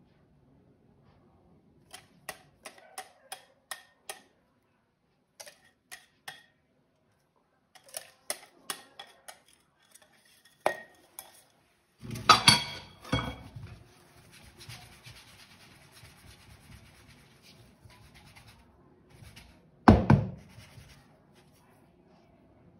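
Kitchen utensils against dishes and cookware: runs of light taps, about three a second, then a loud clatter in the middle and another near the end, with softer scraping between.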